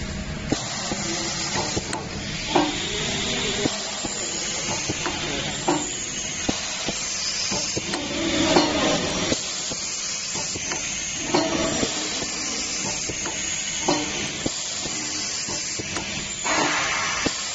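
Semi-automatic pouch labeling machine at work, with a short mechanical burst about every three seconds as it runs through its labeling cycle. Between cycles there is a steady hiss and the rustle of plastic pouches being handled.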